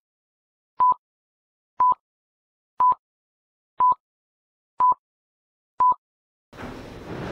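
Short electronic beeps, all on the same single pure tone, evenly spaced one a second, about seven in a row like a countdown. Near the end, after the last beep, a steady rushing noise comes in.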